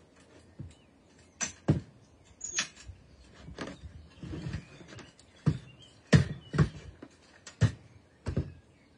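Irregular knocks and clunks, about nine of them, as tools, timber and an aluminium ladder are handled around a timber wall frame.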